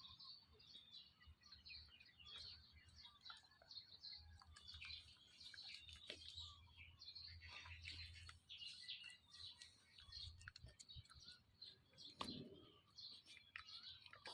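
Faint chirping of small birds: many short, high chirps overlapping throughout, with a low rumble underneath and a single brief knock near the end.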